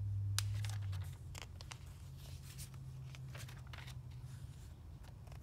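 Glossy paper catalogue pages being handled and turned by hand, a scatter of light rustles and ticks over a steady low hum.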